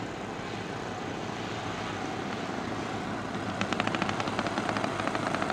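Gas (petrol) engine of a large-scale radio-controlled P-47 Thunderbolt model in flight, a steady propeller drone. About three and a half seconds in it grows louder as the plane comes closer, and its exhaust note breaks into a rapid chatter of distinct pulses.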